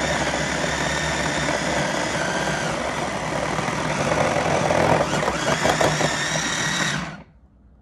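Pampered Chef Flex+ cordless food processor motor running steadily with a high whine while grating a block of cheese through its coarse grating disc. It gets a little louder and rougher from about four seconds in, then cuts off abruptly about seven seconds in.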